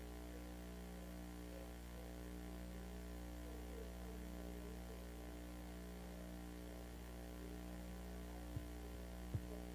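Steady electrical mains hum with a little static, with two short clicks near the end.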